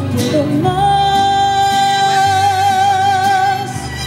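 A woman singing in Spanish through a microphone, holding one long note with vibrato over guitar accompaniment.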